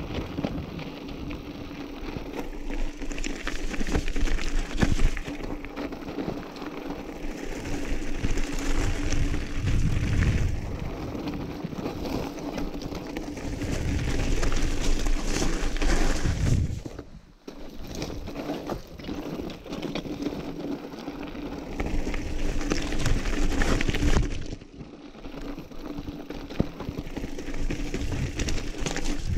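Commencal mountain bike ridden over loose rocky scree: tyres crunching on stones and the bike rattling with constant small clicks, picked up by a camera mounted on the rider. The sound drops out suddenly and briefly twice in the second half.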